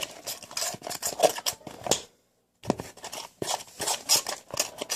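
A utensil scraping and clicking against a bowl in quick, irregular strokes as slime is stirred, with a brief dropout a little after two seconds in.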